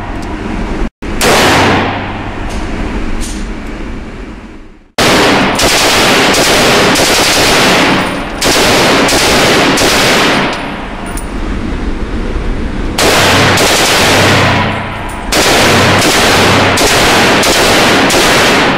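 Gunshots in an echoing indoor range. One shot with a long echo tail comes early. Then, from about five seconds in, a short AK-pattern rifle is fired in quick strings of shots, about two a second, with short pauses between the strings.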